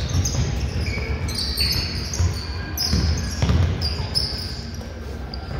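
Basketball bouncing on a hardwood court during a youth game, with repeated dull thuds, a few sharper strikes about three seconds in, and short high squeaks of basketball shoes on the floor.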